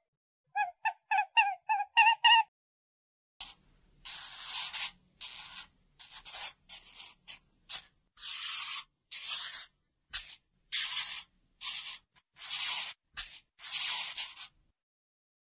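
A rabbit's short high squeaks in quick succession, then a hamster's harsh hissing in a long series of breathy bursts, some brief and some close to a second long.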